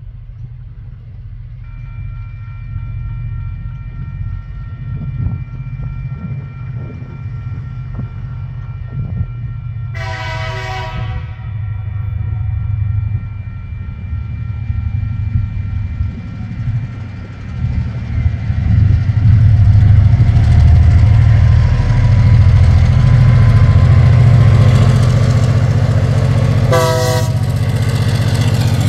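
TasRail diesel-electric locomotives (TR09, DQ 2011 and TR07) climbing a grade under load with a freight train. Their engine rumble builds steadily as they approach and pass close by. The train horn sounds for over a second about a third of the way in, then again briefly near the end.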